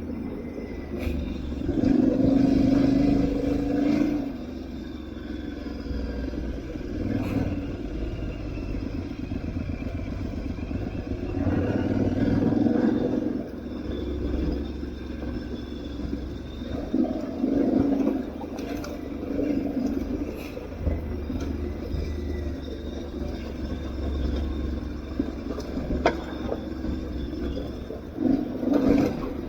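Aprilia Tuareg 660's parallel-twin engine on an off-road ride, its pitch rising and falling with the throttle and swelling louder every several seconds. A low rumble runs underneath, with a few short knocks.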